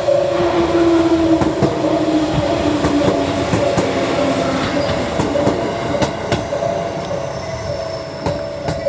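JR 211 series electric train pulling in and slowing, with a lower tone that falls in pitch over the first few seconds and its wheels clacking over rail joints. Through all of it a level crossing alarm keeps ringing: a steady, pulsing warning sound in two close tones.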